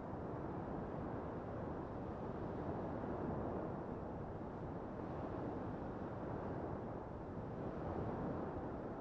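Small waves breaking and washing up a sandy beach: a steady rush of surf that swells a little about three seconds in and again near the end, with wind on the microphone.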